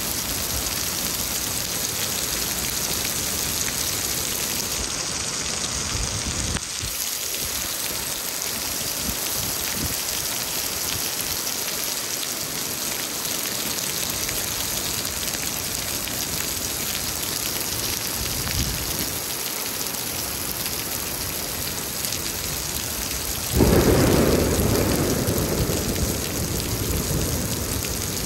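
Heavy rain pouring steadily. About 23 seconds in, a sudden loud clap of thunder breaks and then rumbles away over the next few seconds.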